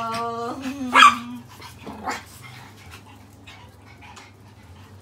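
Small pet dogs, Pomeranians and poodles, vocalizing: a long drawn-out whine that fades out about a second and a half in, with a sharp bark about a second in and another about two seconds in, then quieter.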